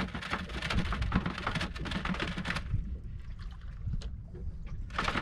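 Wind rumbling on the microphone aboard a small drifting boat, with a dense hiss of splashing water for the first couple of seconds that then falls away, and a short splash near the end.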